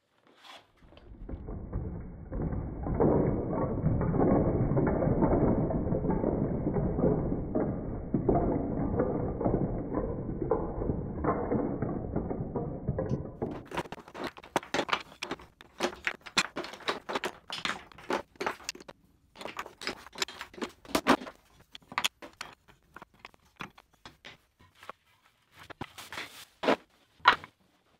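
Small wine-barrel oak offcut blocks clattering and knocking against each other and a plastic bin as they are handled and tipped out. For about the first half it is a dense, muffled rattle; then it breaks into separate sharp wooden knocks as the blocks are spread out and sorted by hand on a wooden tabletop.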